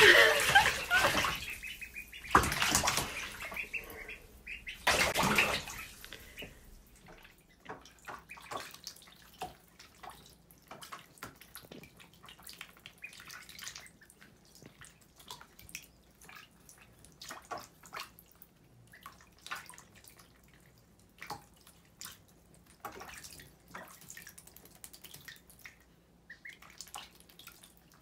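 Shallow bathtub water splashing as ducklings swim and paddle: three loud splashes in the first six seconds, then small, scattered splashes and drips.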